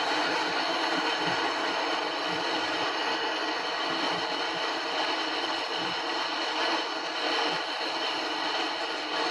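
Brazing torch flame hissing steadily while silver-brazing refrigeration copper tubing.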